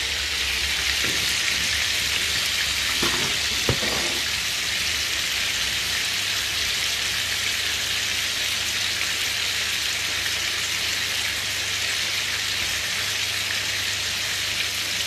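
Chicken pieces frying in a white non-stick frying pan on a gas hob: a steady sizzling hiss of hot fat, with a few light knocks in the first four seconds.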